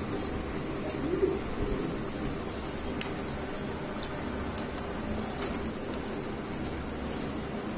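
Caged domestic pigeons cooing, with one clear low coo about a second in, over a steady background din. A few light sharp clicks come later.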